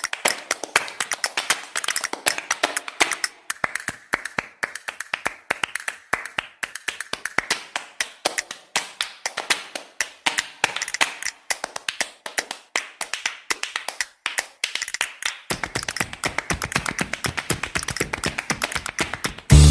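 A percussion-only break in the background music: rapid dry taps, several a second. A low part comes back in near the end.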